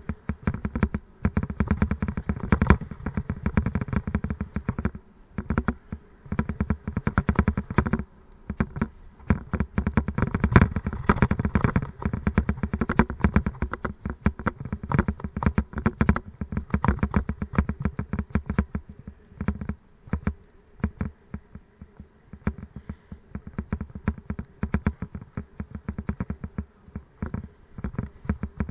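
Continuous loud rattling and jolting from a mountain bike and its bike-mounted camera being shaken over a rough path, a fast, irregular clatter with a few brief easier stretches.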